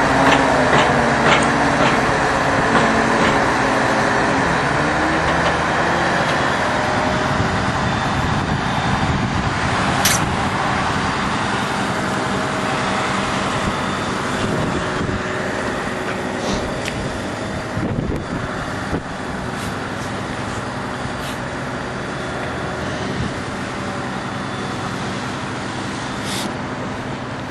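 A crane truck's diesel engine runs steadily while it powers the truck-mounted crane. Its pitch falls over the first several seconds, then holds. A few sharp metallic knocks sound from the load and chain about ten, eighteen and twenty-six seconds in.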